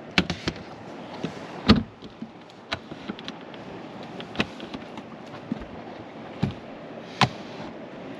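A boat's deck hatch being shut: the smoked acrylic lid knocks down into its frame and the plastic latch handles click as they are turned. A handful of separate sharp clicks and knocks, the loudest just under two seconds in.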